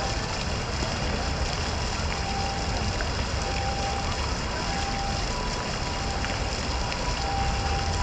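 Fountain water splashing steadily into its stone basin, over a low city rumble. Faint short beeping tones at two alternating pitches recur through it.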